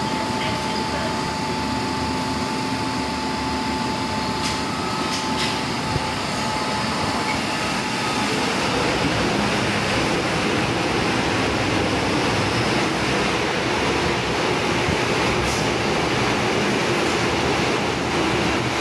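MTR M-train electric multiple unit pulling into a station and running past close by along the platform, its wheel and running noise swelling into a loud, steady rush about eight seconds in. Before that, a steady high tone sounds and stops.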